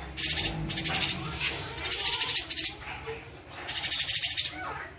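Cucak cungkok leafbird singing in three rapid, dense high-pitched bursts, each under a second long, packed with varied phrases ('isian rapet').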